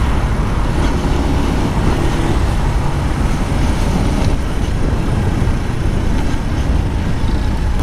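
A motorcycle riding through city traffic: its engine running steadily under a rush of wind noise on the microphone.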